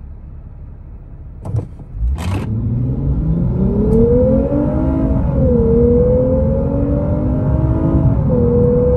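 A 2021 Lexus IS350 F-Sport's 3.5-litre V6, heard from inside the cabin, idles and then revs hard under full-throttle acceleration from a standstill. A short burst of noise comes as it pulls away. The engine note climbs steadily and drops twice, about five and eight seconds in, as the eight-speed automatic upshifts, each time climbing again.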